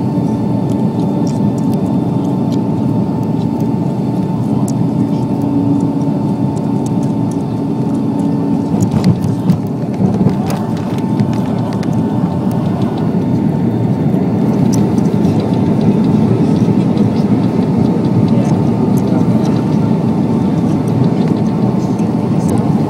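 Cabin noise of a Boeing 757 landing: steady engine and airflow noise with a steady whine. A few sharp knocks come about nine to ten seconds in, and the noise grows louder a few seconds later.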